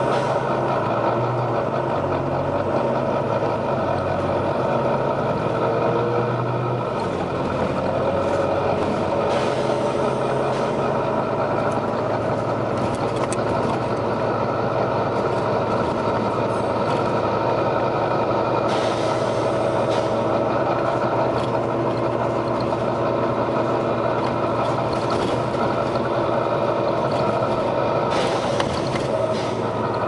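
Volvo B9TL double-decker bus's diesel engine and transmission running steadily as the bus drives, with a whine that glides up and down with speed. Three short hisses of air from the bus's air system come roughly every nine or ten seconds.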